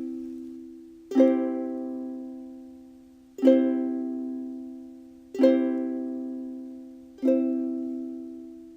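Ukulele strumming a C major chord four times, about every two seconds, each strum left to ring out and fade before the next.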